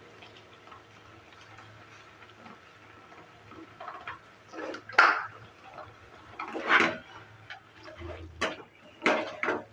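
Spoon knocking and scraping against a cooking pan as the chutney is stirred: a few short, sharp clatters that start about four seconds in, with the loudest near the middle.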